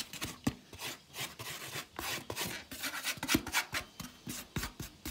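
A metal spoon scraping crumbly cottage cheese off a plastic tray into a metal bowl: a string of irregular scrapes with light clicks and knocks against the tray and bowl.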